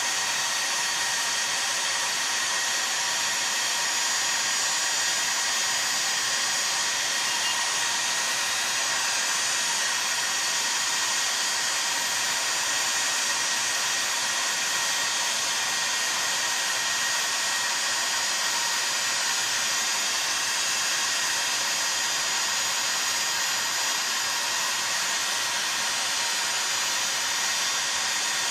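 Heat gun blowing steadily, heating a chainsaw crankcase so the crankshaft bearing and oil seal can be fitted.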